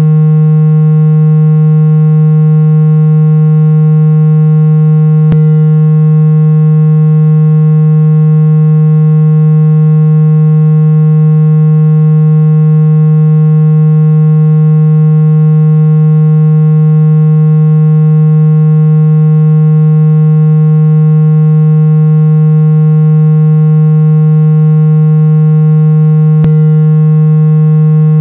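Continuous loud, buzzy low electronic tone held at one steady pitch with a ladder of overtones above it, presented as a sound to unblock the ears. Two faint clicks break it, about five seconds in and near the end.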